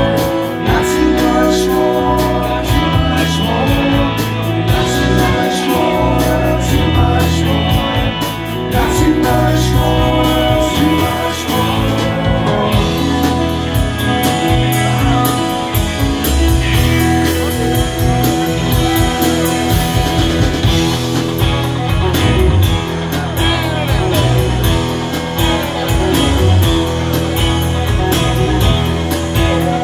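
Rock band playing live: electric guitar, bass guitar and drums, with singing in places, heard from the audience.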